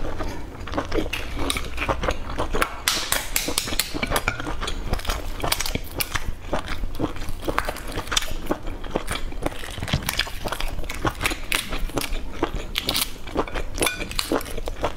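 Eggshell crackling and snapping as fingers pick it off a boiled egg: a dense, irregular run of small clicks, close to the microphone.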